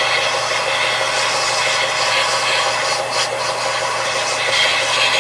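Benchtop belt sander running with a steady motor hum under an even sanding hiss, as the end of a small maple pipe is pressed against the belt near the end roller to round it off.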